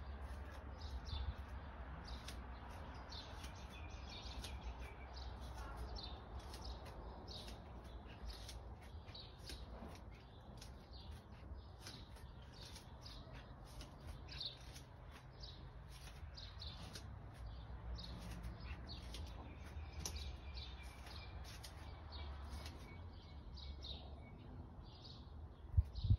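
Small birds chirping: a steady run of short, high chirps, several a second, over a low rumble on the microphone. There is one louder knock near the end.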